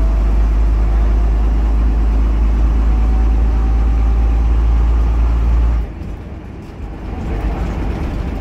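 Leyland O.680 six-cylinder diesel of a 1973 Bristol RELH6L bus pulling hard, heard from inside the saloon: a deep, loud engine drone with a faint rising whine. About six seconds in the engine note drops suddenly, then starts building again.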